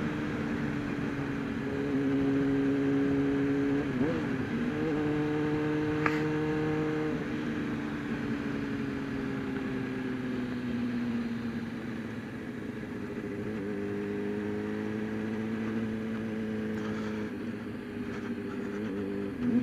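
Sportbike engine running under way, heard through a helmet mic over wind noise. Its pitch steps up about four seconds in, sinks slowly as the bike eases off, and climbs again past the halfway mark.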